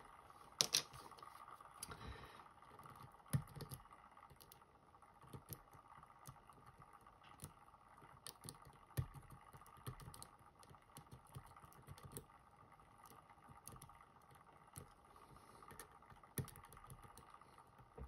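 Faint, irregular light clicks and ticks of a lock pick tapping the pins of a Van Lock padlock, a tubular-style lock held under tension by a homemade music wire tensioner, as the pins are set one by one. The few louder clicks stand out about a second in, near three seconds and about nine seconds in, over a faint steady hum.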